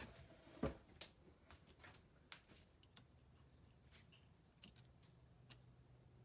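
Near silence with light handling clicks and taps of a plastic ruler and felt-tip marker on a cutting mat. The sharpest click comes about two-thirds of a second in, then fainter ticks follow.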